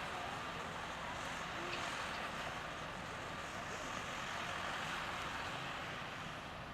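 Heavy diesel construction machinery running steadily at a work site, a continuous engine drone with no distinct knocks or bangs, easing off slightly near the end.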